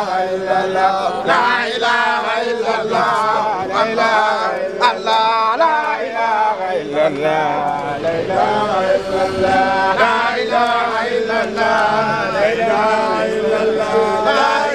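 Male voices chanting devotional verses in praise of a Sufi sheikh, a continuous sung chant.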